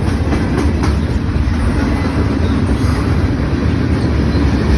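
Norfolk Southern freight train rolling past with a steady low rumble, a few faint clicks in the first second.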